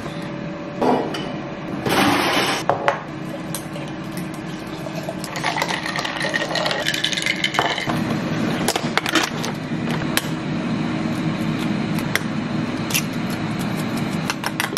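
Kitchen handling noise: a box and plastic food packaging handled on a countertop, with scattered light clicks and knocks of containers and dishes and a stretch of rustling about halfway through.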